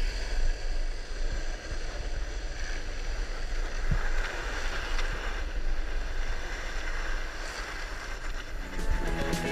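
Longboard wheels rolling fast down an asphalt road, a steady rumble under wind buffeting the microphone. Music comes back in near the end.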